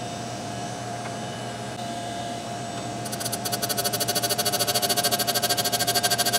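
Tool and cutter grinder's motor running with a steady whine. About three seconds in, the wheel starts grinding the steel parting blade, adding a fast pulsing hiss that grows louder.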